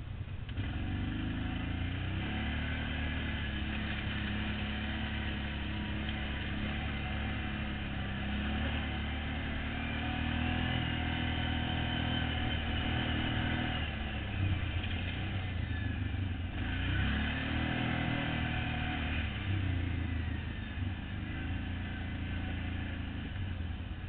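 ATV engine running under throttle on a dirt trail, its pitch rising and falling repeatedly as the rider accelerates and eases off.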